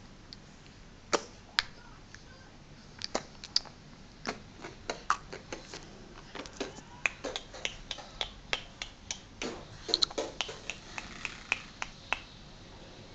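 A baby making a run of short, sharp clicking mouth sounds, irregular and a few a second. They are sparse at first and come thicker and faster in the second half.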